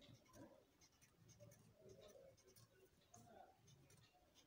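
Faint scratching of a pencil point on graph paper in quick, short strokes, shading in small squares.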